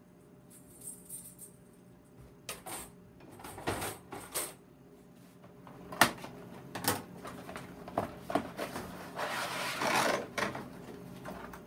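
Handling noises of a new bandsaw blade being unpacked from its long cardboard box: scattered clicks and taps, a sharp knock about six seconds in, and a scraping rustle near the end as the blade slides out of the box.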